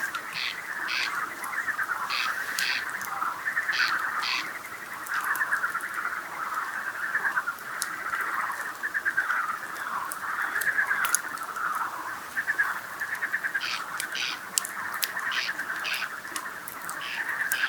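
A chorus of frogs croaking continuously, with a campfire crackling in sharp pops throughout.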